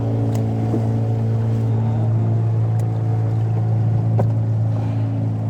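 Boat engine running steadily at a constant speed, an even deep hum with a couple of faint knocks over it.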